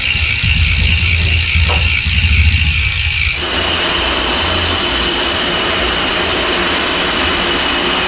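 Bicycle rear freehubs coasting, the pawls clicking so fast they run together into a steady buzz: first a Ragusa XM600 hub, then, from about three seconds in, an ARC MT-009 hub with a fuller, hissier, slightly higher buzz. Rain noise is mixed in.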